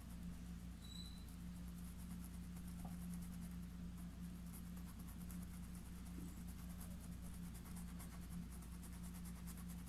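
Paintbrush bristles stroking acrylic fabric paint onto cloth stretched taut in an embroidery hoop: a faint run of soft, scratchy strokes over a steady low hum.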